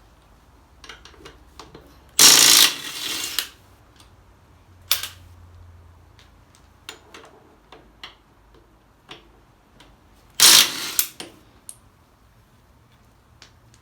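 Tools at work on the wheel fixings of a garden tractor: two loud rasping bursts, each about a second long, about two seconds in and again about ten seconds in, with scattered clicks and knocks of metal between them.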